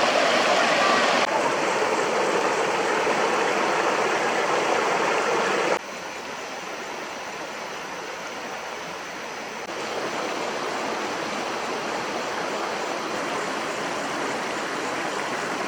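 River or stream water flowing steadily, a rushing noise with no distinct tones. It is loud at first and drops sharply about six seconds in, then rises a little near ten seconds.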